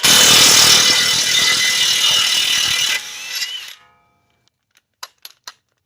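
Impact wrench hammering a 24 mm nut loose, a dense rattle lasting about three seconds, then winding down. A few light clicks follow about five seconds in.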